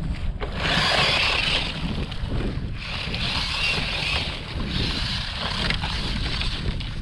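Traxxas 1/16 Slash's brushed electric motor and drivetrain whining in repeated bursts as the small RC truck pushes through dry grass, with low wind rumble on the microphone.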